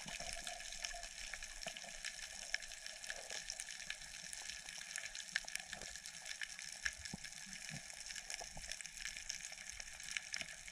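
Underwater reef ambience heard through a submerged camera: a steady, faint hiss with many scattered small clicks and crackles, and a few soft low thumps.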